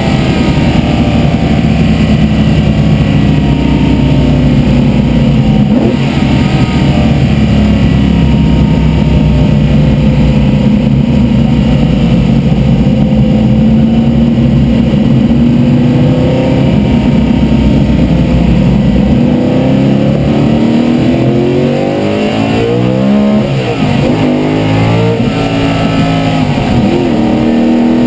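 Vintage race car's engine heard loud from inside the cockpit while racing: fairly steady at high revs for most of the time, then revs falling and rising in quick sweeps over the last third.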